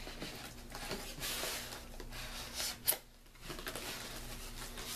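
Rustling and scraping of box packaging being handled and pulled open, with one sharp click about three seconds in.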